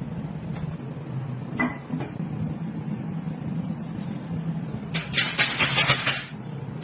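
Metal parts clinking: a single ringing tap about one and a half seconds in, then about a second of rapid rattling and clinking near the end, over a steady low hum.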